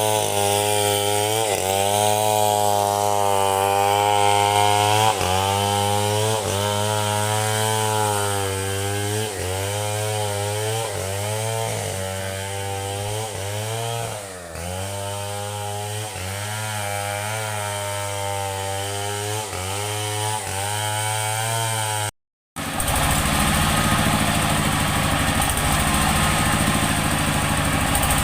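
Two-stroke chainsaw ripping lengthwise through a large log, its engine speed repeatedly dipping as the chain bogs under load and recovering. After a sudden cut about 22 seconds in, an engine runs at a lower, steadier idle.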